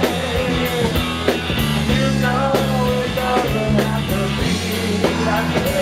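Live rock band playing, with a drum kit keeping a steady beat under bass and held chords.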